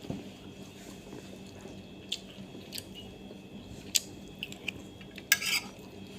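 Cutlery clinking against a plate while eating: a few sharp separate clicks, then a short scraping clink near the end.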